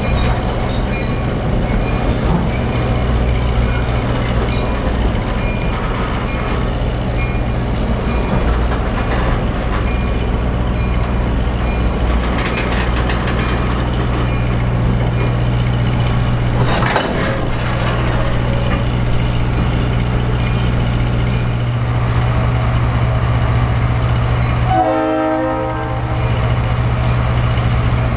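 Diesel-hauled train running by, with a steady low engine drone throughout.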